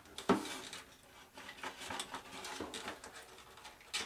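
Scattered light scraping, rustling and small clicks as servo wires and pull-string are worked through a model airplane wing by hand. A short vocal sound that falls in pitch comes just after the start.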